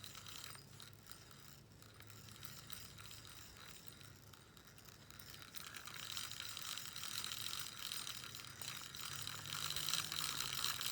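Push-button spincast fishing reel being cranked to reel in the line: a faint, fine gear whir that grows louder about halfway through.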